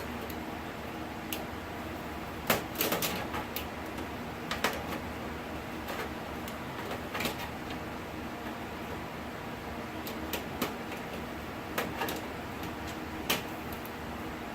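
Scattered sharp clicks and light metallic taps of a multi-tool screwdriver working at a PC case's expansion-slot screws and brackets, about a dozen, irregularly spaced, over a steady low background hiss.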